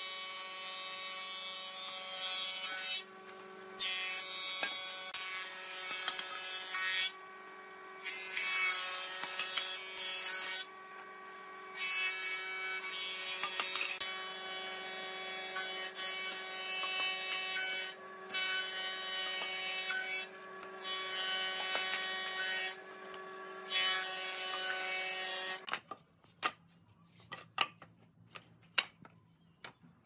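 Hitachi combination woodworking machine running with pine boards fed through its thickness planer: a steady motor hum under the loud hiss of the cutterhead shaving wood, which falls back to the bare hum in several short gaps between boards. Near the end the machine stops and planed boards knock together as they are stacked.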